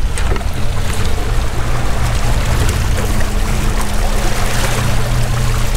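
Water splashing and churning as a large striped bass thrashes at the surface beside the boat. Under it is the steady low hum of a Suzuki 115 outboard motor running.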